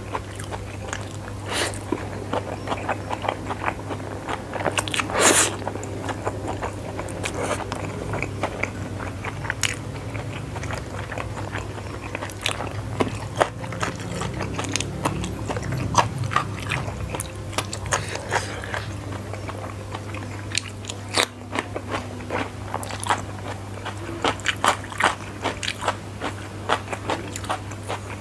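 Close-miked chewing of spicy fried flat rice noodles (kwetiau goreng), with wet mouth clicks and crisp crunching bites, one louder crunch about five seconds in. A steady low hum runs underneath.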